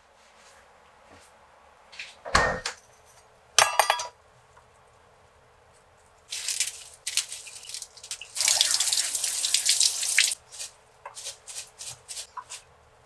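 A fridge door shutting with a thump and a short plastic rattle, then a kitchen tap running twice briefly over lettuce in the sink, the longer run about two seconds. After it come drips and small crisp snaps of lettuce leaves being torn.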